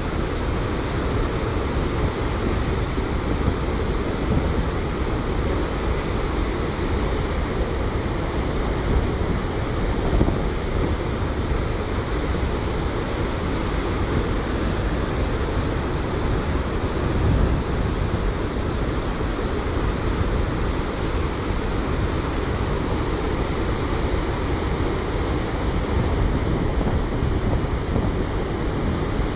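Floodwater released through a dam's open floodgates, gates raised twelve feet: a steady, heavy rush of churning white water with no letup.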